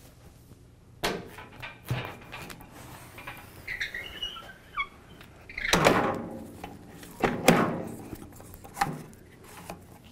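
Handling noise as a roll of laminating film on its cardboard core is slid onto a laminator's metal supply shaft: several knocks and thuds, the loudest about six and seven and a half seconds in, with a few short squeaks a little before them.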